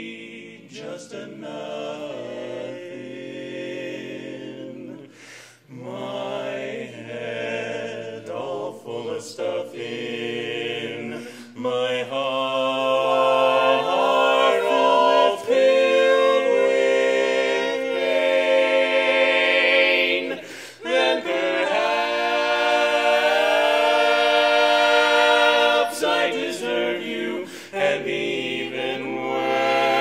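Male barbershop quartet singing a cappella in close four-part harmony, holding and shifting sustained chords. The singing swells much louder about twelve seconds in and eases off again near the end.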